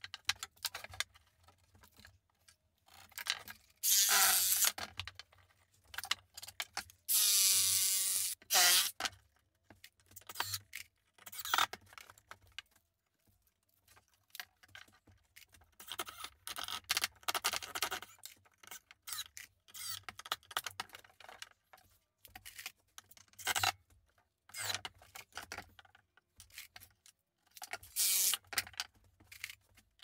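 Woodworking at a bench: short runs of a cordless power tool, one sliding down in pitch, among knocks and scrapes of wooden battens handled and laid on the workbench.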